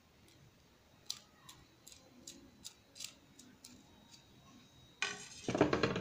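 A series of small sharp clicks and snips as a kitchen knife cuts a slit into the side of a small rubber gasket, then a louder sound about a second long near the end.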